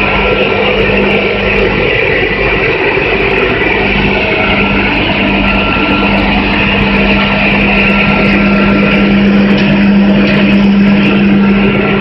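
Caramel popcorn production line machinery running: a loud, steady din of electric motors and moving equipment with a constant low hum.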